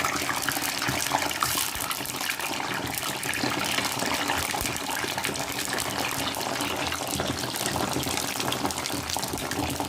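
Eggplants frying in hot oil: a steady, dense sizzle with constant fine crackling.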